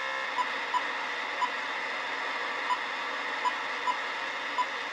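Icom IC-R7100 communications receiver hissing with steady static through its speaker, tuned to no signal. Over it come about seven short, high keypad beeps at uneven intervals as a frequency is keyed in.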